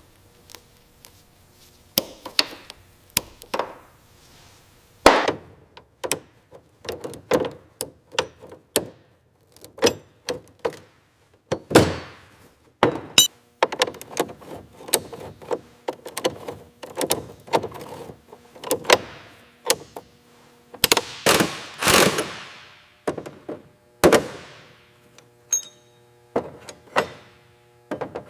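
Tools and parts being handled at the airframe: a rapid, irregular run of knocks, clunks and taps, with a few longer scraping sounds about three-quarters of the way through and a faint steady hum underneath.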